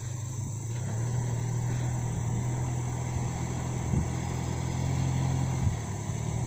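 Isuzu D-Max pickup truck's engine running under steady load on a muddy track, a low even drone that steps up slightly in pitch just after the start and shifts again near the end.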